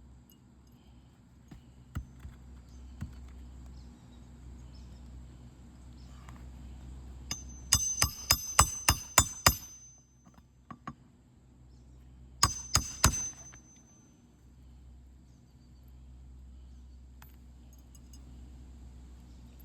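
Hammer driving roofing nails into a replacement shingle: a quick run of about eight ringing strikes, then three more a few seconds later.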